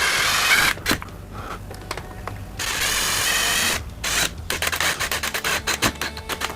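Cordless drill/driver whirring in two short bursts of about a second each, driving the mounting screws of a smart lock's interior plate, with clicks and knocks of the tool and parts in between.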